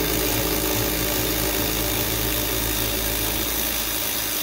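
Cordless power ratchet with a 10mm socket running steadily in reverse, spinning out the second nut holding the accelerator pedal.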